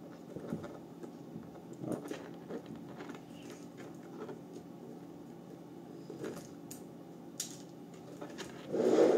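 Light clicks and scrapes of hands handling a computer power supply and its bundled cables, then near the end a louder rubbing, rustling noise as the cable bundle is pulled and moved.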